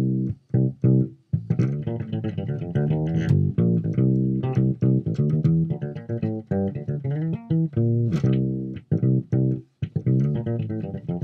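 Home-built P/J electric bass with flatwound strings, played through a Peavey Basic 112 combo amp and picked up by a laptop microphone. It plays a quick, choppy line of short plucked notes, on the jazz-bass pickup with the tone rolled off a little, still bright and punchy.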